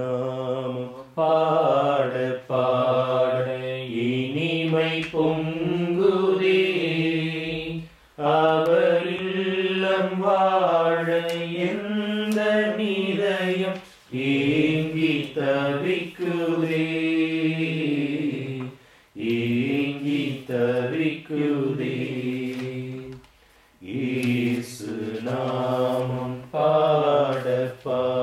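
A man's voice chanting a Tamil devotional prayer, in long melodic phrases several seconds each with short breaks between them.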